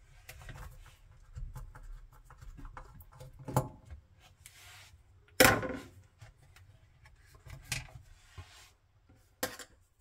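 A Torx screwdriver turning a screw out of a dishwasher's plastic pump cover: scattered small clicks and scrapes, with a few sharper knocks of the tool against the plastic and tub. The loudest knock comes about halfway through.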